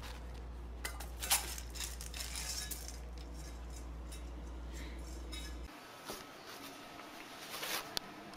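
Dry kibble clinking against a metal dog bowl as a dog eats, a cluster of sharp clinks in the first three seconds over a steady low hum. A few fainter clicks follow after the hum stops.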